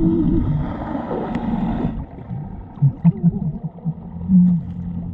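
Muffled underwater sound picked up by a submerged camera: water sloshing and gurgling with wavering, voice-like tones. The sound turns duller about two seconds in, and a few short low bumps come in the second half.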